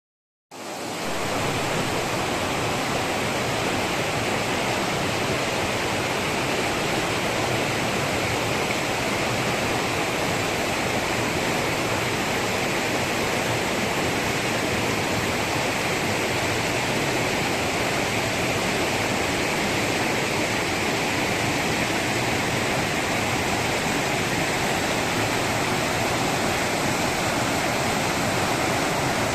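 Steady rush of flowing water, cutting in abruptly about half a second in and holding unchanged.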